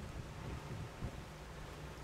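Low, uneven outdoor rumble, with a brief bump about a second in.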